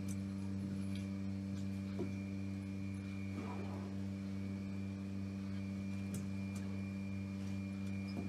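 Steady low electrical hum with a thin high whine above it. A few faint scrapes and clicks come and go.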